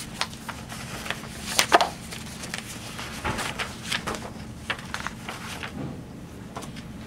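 Scattered rustles, clicks and small knocks of papers being handled at a meeting table, the sharpest a little under two seconds in, over a faint steady low hum.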